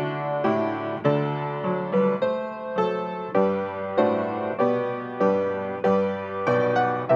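Solo piano playing a slow hymn postlude, chords struck about twice a second and left to ring out.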